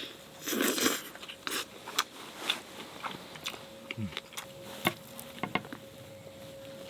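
Scattered sharp clicks and knocks, with a short rustle about half a second in. A faint steady tone comes in about halfway.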